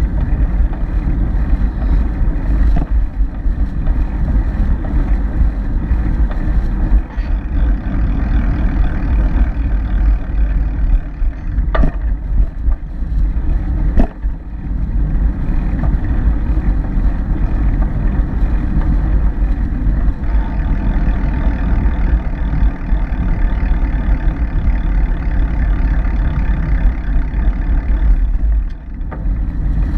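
Steady low rumble of wind buffeting the microphone of a camera on a moving bike, with a steady motor-like drone over it. Two sharp clicks come about halfway through.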